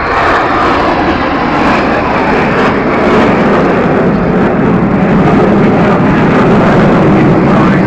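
BAE Hawk jets of the Red Arrows display team flying past, a loud, steady jet noise from their Adour turbofans that deepens in pitch as they go by.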